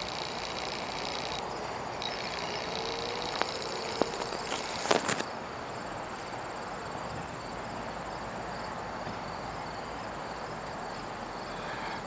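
Insects chirping steadily in a high, even buzz over a soft outdoor hiss, with a few sharp clicks about four to five seconds in.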